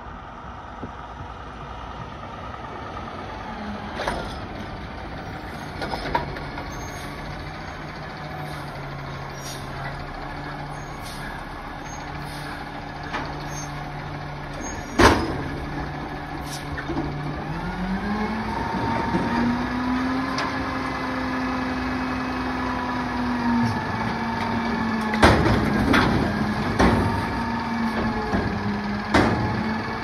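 Front-loader garbage truck rolling up and stopping, with a sharp air-brake hiss about halfway through. The engine then revs up and holds at a higher speed as the hydraulic forks lift the dumpster. Several metal clanks come near the end.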